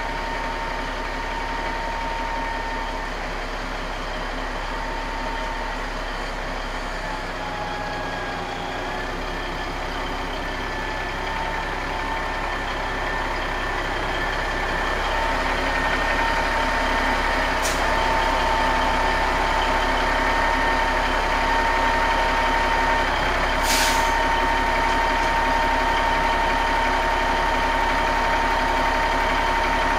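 Diesel engine of a Marmon 57P cab-over semi truck running with a steady whine as the truck rolls slowly closer, growing louder in the second half. A short burst of air hiss, typical of the air brakes, comes about three quarters of the way through.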